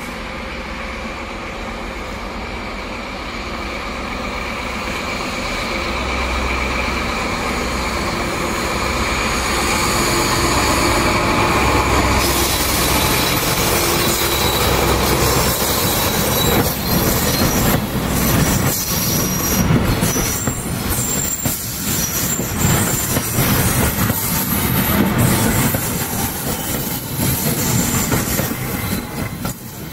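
Diesel locomotive hauling a train of vintage carriages, approaching and passing close by. Its engine throb grows louder over the first dozen seconds. Then the carriages roll past with rhythmic clatter over the rail joints and some wheel squeal.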